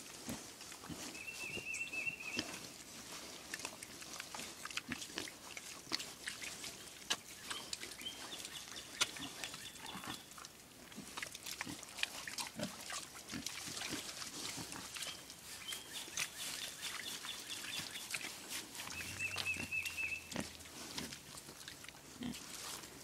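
Young hogs grunting and snuffling as they move about in their pen, with irregular short grunts and scuffling throughout.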